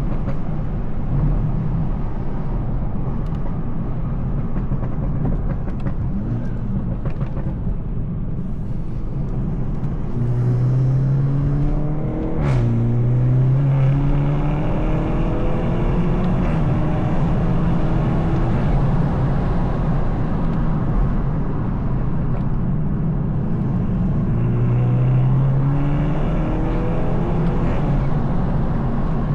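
Tuned BMW B48 2.0-litre turbocharged four-cylinder engine with a free-flow downpipe and M240i exhaust, driven at a steady pace. The engine note rises in a gentle acceleration, drops at a gear change about twelve seconds in, rises again, and rises once more near the end.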